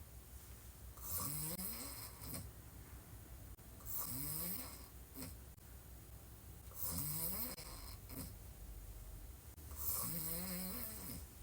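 A woman snoring while lying on her back: four snores about three seconds apart, each a rattling tone that rises in pitch, with softer breaths between them.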